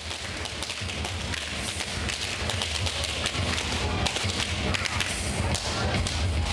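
Balloons being popped one after another in a rapid run of sharp bangs, growing denser and louder about two seconds in.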